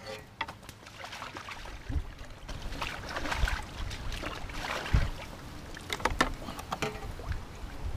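Wind gusting on the microphone in low rumbles, with sharp clicks and light rattles from a carbon fishing pole and tackle being handled.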